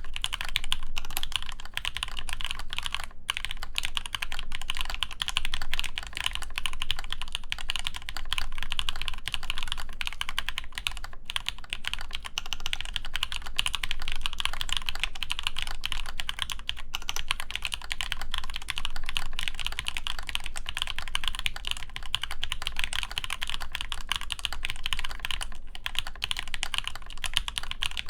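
Continuous fast typing on a custom mechanical keyboard: an AEBoards Praxis IM with an injection-molded ABS case, full aluminium plate, lubed Zepsody Blue Bonnet switches on 62 g springs and GMK keycaps, a dense stream of keystrokes with no pauses longer than a moment.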